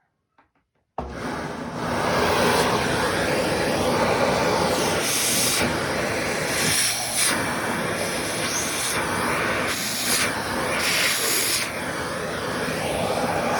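Vacuum cleaner switched on about a second in, then running steadily. Its high airy hiss swells and fades every second or two as the nozzle works over socks.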